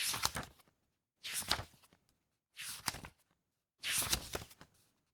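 Paper pages being turned, four times, about one every second and a quarter, each a short crisp rustle and crackle of paper, with silence in between.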